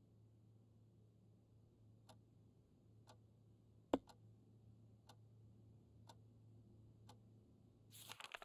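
Faint clock ticking about once a second over a low steady hum. One much louder sharp knock comes about four seconds in, and a brief clatter of noisy bursts comes near the end.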